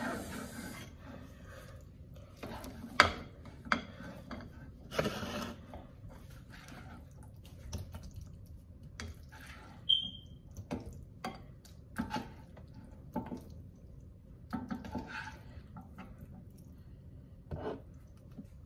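Slotted serving spoon scraping and clinking against dishes as macaroni and cheese is scooped into a bowl: scattered knocks and scrapes, with a brief high tone near the middle.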